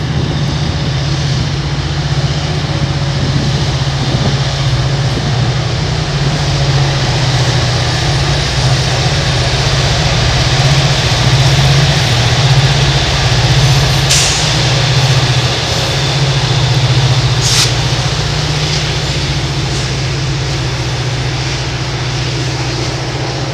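Rear of a double-stack intermodal train rolling past, then two Norfolk Southern SD40E diesel helper locomotives pushing it uphill, their engines giving a steady low drone that is loudest about halfway through. Two brief sharp hisses come a little after the locomotives pass, and the sound eases off near the end.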